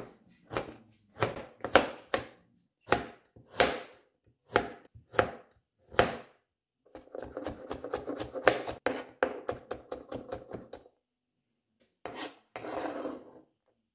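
Chef's knife cutting raw carrot on a plastic cutting board: single slicing strokes about every half second, then a fast run of rapid chopping strokes as the slices are cut into matchsticks. Near the end, after a short pause, a brief scraping sound of the blade on the board.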